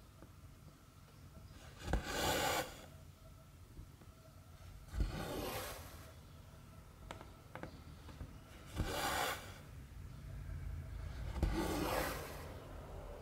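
Needle and thread drawn through 11-count cross-stitch fabric four times, about three seconds apart. Each pull is a short rasping swish that begins with a sharp tick.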